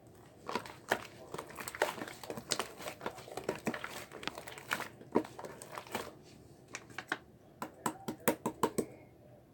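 Slime being squished and pressed by hand, giving a dense run of small clicks and pops that later thins into a few separate, sharper clicks near the end.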